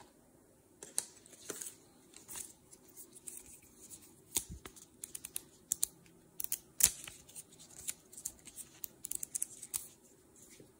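Paper handling: the pages of a small printed instruction booklet flipped and paper leaflets and card packaging moved about, a run of irregular sharp snaps and rustles, the loudest a little past the middle.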